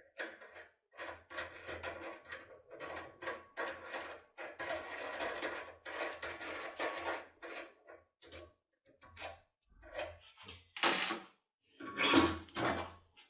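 Topolino decoder pick working inside an Iseo R700 lock, giving irregular bursts of metallic scraping and clicking, louder near the end.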